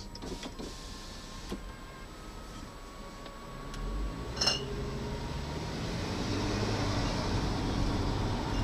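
Car engine and road noise heard from inside the cabin, quiet while stopped and then rising as the car pulls away from the light about halfway through. A few light clicks early on and one brief sharp sound about four and a half seconds in.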